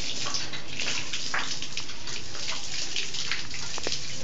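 Water from a hand pump pouring and splashing onto a person bent beneath the spout, a steady rush with irregular splashes.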